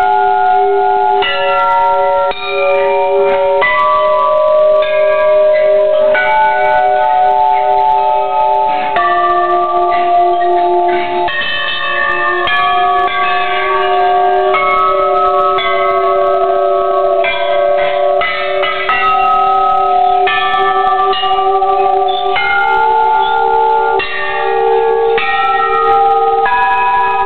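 Hanging metal temple bells rung one after another by hand, a new bell every second or two, each tone ringing on and overlapping the next.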